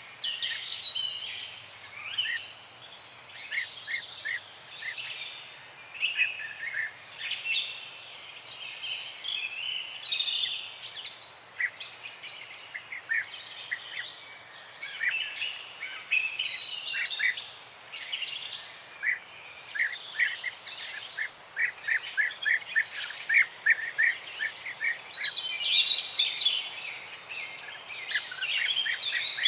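Several songbirds singing and chirping together in a morning chorus: many overlapping calls and trills, with runs of short repeated notes, over a faint steady outdoor hiss.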